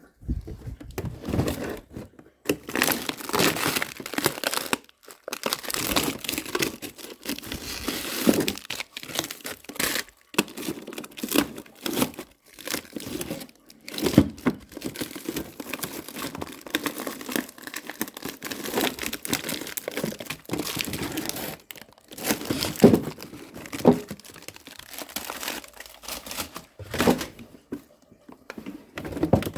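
Plastic food packaging being handled in a kitchen, crinkling and tearing. It comes in irregular bursts with short pauses, with a few sharper clicks and knocks near the end.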